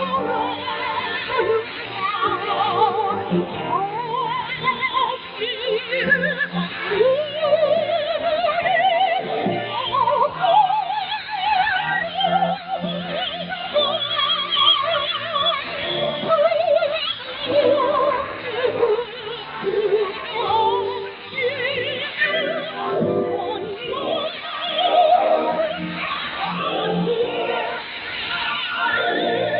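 Vocal music in an operatic style, with a wavering vibrato over accompaniment, played on the Voice of Korea shortwave broadcast. It is heard through a shortwave receiver's narrow 4 kHz filter, so it sounds thin with no treble.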